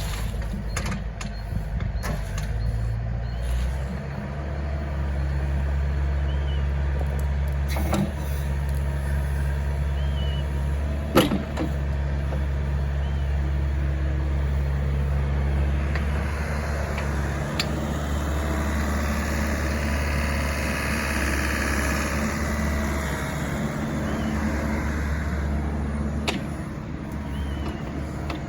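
Doosan DX62R-3 excavator's diesel engine running steadily, its speed stepping up about four seconds in. A single sharp knock comes about a third of the way through, and a higher hissing whine swells and fades in the second half.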